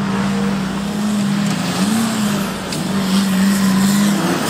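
Off-road 4x4 engine running hard at steady high revs, with a brief lift off the throttle about two seconds in and another dip near the end.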